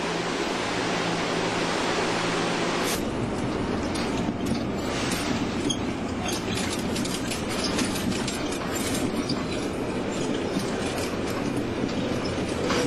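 Subway train running, heard from inside the carriage: a steady rumble with wheels clacking and rattling on the rails. For the first three seconds there is a steadier hum, which then gives way to the clacking carriage noise.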